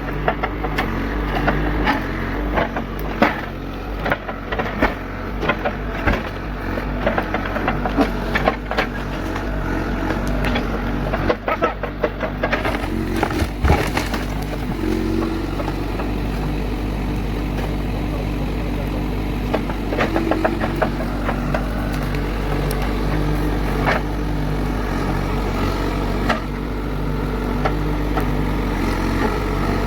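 A heavy machine's engine running steadily under load while the wooden cabin is pushed over, with repeated cracking, crunching and knocking of breaking timber, thickest in the first half and sparser later.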